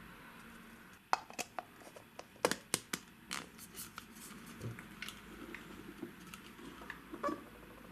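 Hard plastic stacking-cup toy pieces clicking and knocking together as they are fitted onto one another: a quick run of sharp clicks about a second in, then softer handling clicks.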